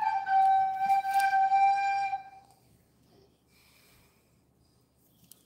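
A steady, high whistle-like tone that drifts slightly lower and stops about two seconds in, followed by near silence.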